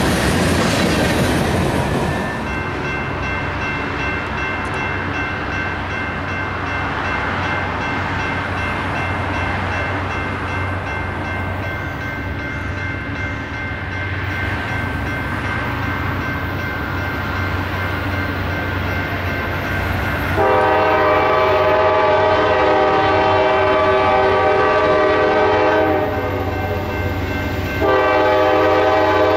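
Diesel freight locomotive approaching, with a loud rush of train noise for the first couple of seconds and then a steadier, quieter run. Its multi-chime air horn sounds a long blast about twenty seconds in, stops briefly, and sounds again near the end.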